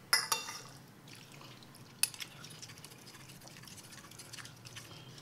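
Metal cutlery clinking against a ceramic plate: one ringing clink just after the start and a sharper click about two seconds in, followed by faint small clicks as noodles are twirled with a fork against a spoon.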